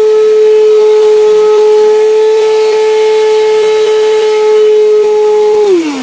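Handheld cordless dust mite vacuum cleaner's motor running with a steady high whine, then switched off near the end, its pitch falling as it spins down.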